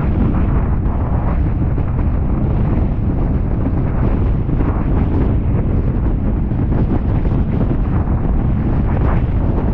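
Strong wind buffeting the microphone of an onboard camera: a steady, heavy low rumble with no breaks.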